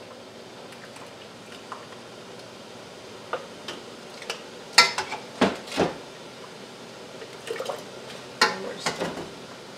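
A ladle knocking and clinking against a cooking pot and a canning funnel set in glass mason jars while hot salsa is ladled into the jars, with wet sloshing of the sauce. The knocks come irregularly, the loudest about five seconds in and a cluster near the end.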